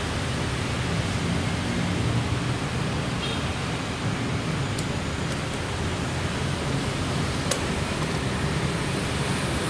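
Lakoni oil-less air compressor running steadily, a hissing, humming noise with a few faint ticks.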